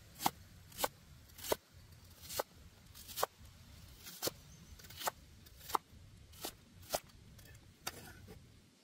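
A series of short, sharp taps or knocks, a little more than one a second at slightly uneven spacing.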